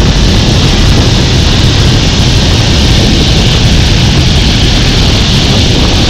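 Loud, steady rush of wind buffeting a body-mounted action camera's microphone on a fast, face-down zip-line ride, with a deep rumble underneath.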